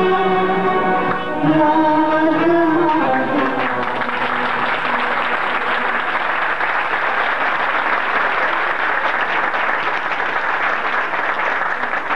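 A children's Turkish classical music choir and ensemble with ud finish a song on a held final note, which ends about three seconds in. The audience then applauds for the rest.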